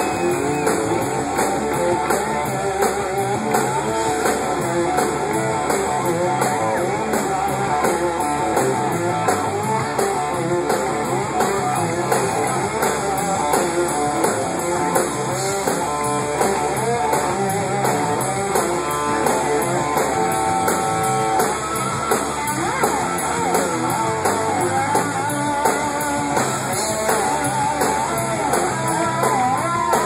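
Live rock band playing, recorded from the audience: electric guitars to the fore over bass and drums, with little or no singing.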